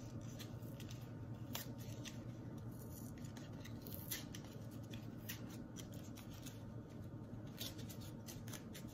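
Faint scattered clicks and light rustles of seed packets and plastic seed trays being handled, over a low steady hum.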